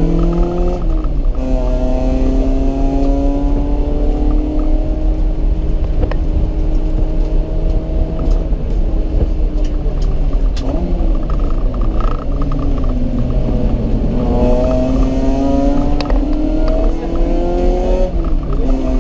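Honda CRX's four-cylinder engine pulling hard through the gears on a race track. Its pitch climbs steadily and drops sharply at an upshift about a second in and another near the end, and it eases off and wavers around the middle before accelerating again.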